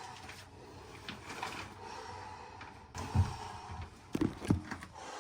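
A few dull knocks over a low rustling background: one about three seconds in, then two more close together a second later.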